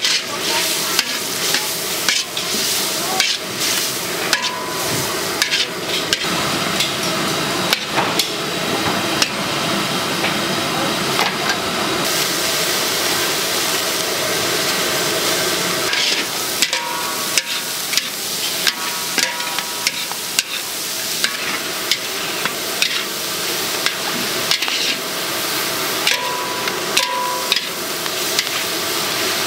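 Pad thai noodles sizzling as they are stir-fried, with a metal spatula scraping and clanking against the pan many times at an uneven pace.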